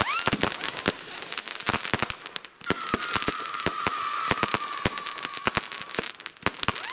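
New Year's Eve fireworks going off all around: many sharp overlapping bangs of firecrackers and shells. A rocket whistles upward at the very start, and a long steady whistle from a whistling firework sounds from under halfway in for about three seconds, sagging slightly in pitch.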